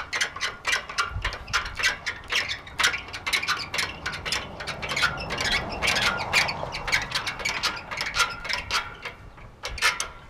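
Metal parts of a Farmall Super MTA tractor and side-delivery rake rattling and clacking irregularly, several times a second, as the rig travels over the hayfield raking windrows.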